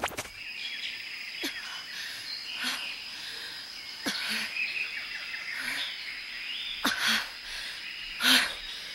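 Small birds chirping in short, sharply falling calls about every second or so, with faint twittering and a thin steady high tone behind them: a morning birdsong ambience.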